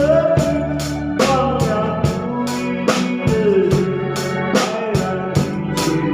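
Live band music: an electronic organ-style keyboard carries the melody over a drum kit keeping a steady beat of about two to three strikes a second.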